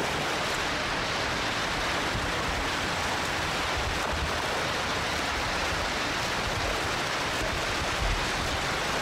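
Steady rushing water, an even hiss with no rhythm of strokes or splashes, holding one level throughout.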